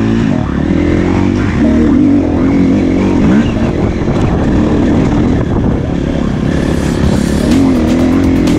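2016 Husqvarna FE350 four-stroke single-cylinder dirt bike engine running under way, its pitch rising and falling repeatedly as the throttle is worked.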